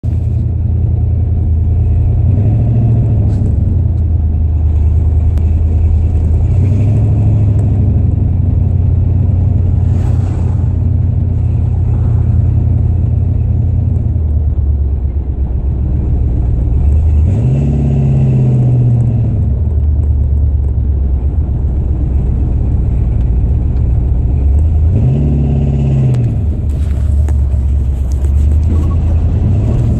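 A 1964 Chrysler 300K's cross-ram 413 V8, heard from inside the cabin while driving, running steadily. Twice in the second half the engine note rises and falls as the car accelerates. The engine is running well on its freshly repaired carburetor shafts.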